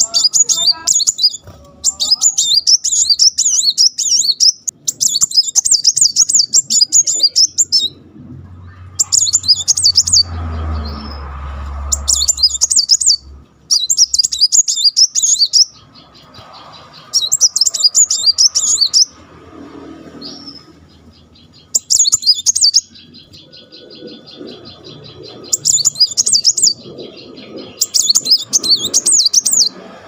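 Male plain-throated sunbird (kolibri muncang) singing in repeated bursts of rapid, high-pitched chattering trills, each a second or two long with short pauses between. This is the fast-fire 'tembakan' song that keepers play as a master or lure recording to get other muncang singing.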